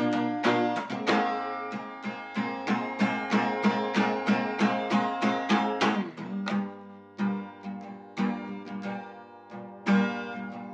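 Guitar being picked by hand in an instrumental passage: a quick run of single plucked notes, about four a second, a brief dip about halfway through, then more picked notes over a repeated low bass note.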